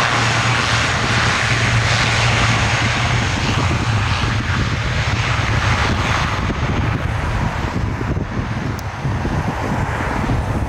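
Twin-engine turboprop airliner running its engines as it rolls down the runway away from the listener: a steady low propeller drone under a broad rushing hiss. The upper hiss thins out after about six seconds as the aircraft draws away.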